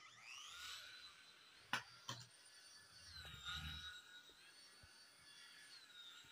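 Small electric motors and rotor blades of a toy flying LED ball spinning up at the start to a thin high whine, which holds steady and dips in pitch twice as the ball flies. Two sharp clicks about two seconds in, the first the loudest.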